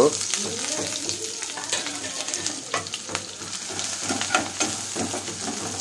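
Sliced onions sizzling in hot oil in a nonstick wok as they are stirred, with scattered light scrapes and taps of a metal slotted spoon against the pan.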